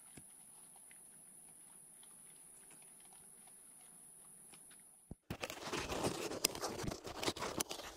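Feral hogs feeding at a bait site: a faint steady high hiss with scattered soft clicks, then a sudden dense run of loud crunching and clicking about five seconds in, lasting about three seconds.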